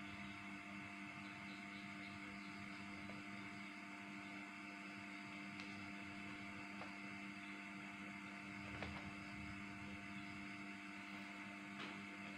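Steady low electrical hum made of several fixed tones, with a few faint clicks, the clearest about nine seconds in.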